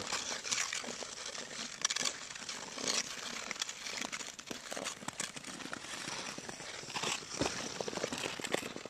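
Ice skate blades scraping and crunching on rough outdoor pond ice: an uneven run of short scratchy strokes.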